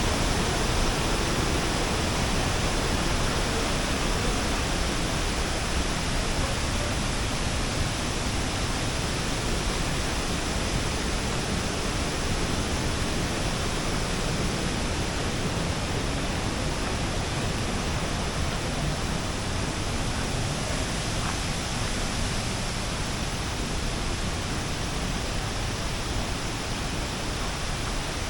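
Steady rush of water pouring over a waterfall, growing slightly quieter toward the end.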